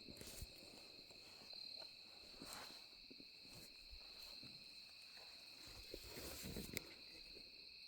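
Faint, steady chirring of insects in the woods, with a few soft knocks and shuffles, the loudest near the end.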